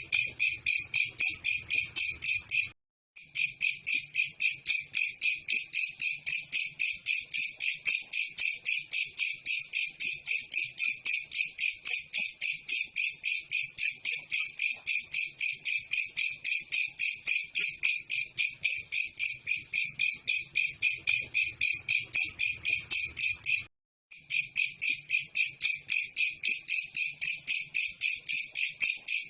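Belalang kecek katydid calling: a continuous high, buzzy trill of rapid, evenly spaced pulses, several a second. It cuts out completely for a fraction of a second twice, about three seconds in and near the end.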